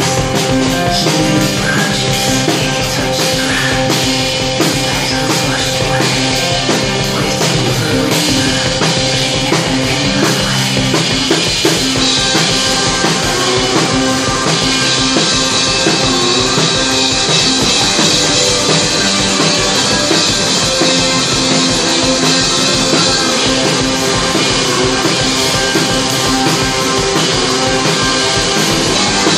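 Live instrumental rock: electric guitar and drum kit playing loud and dense, with the drums keeping a driving beat.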